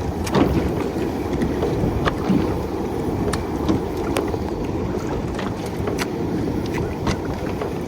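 Steady wind and water noise on a small fishing boat at sea, with scattered light clicks and knocks at irregular moments.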